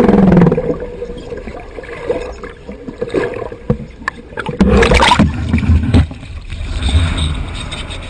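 Muffled sloshing and gurgling of water heard through a camera held just below the surface, with a loud splashing surge about five seconds in.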